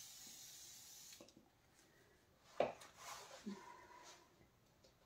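Faint brushwork on a painted wall: a few light taps and rubs of the brush and palette, the loudest a sharp tap about two and a half seconds in. A steady faint hiss cuts off about a second in.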